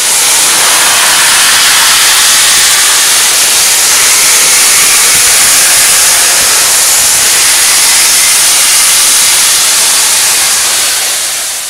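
Loud, steady hiss of steam venting at track level from Union Pacific Big Boy No. 4014, a large steam locomotive, fading out near the end.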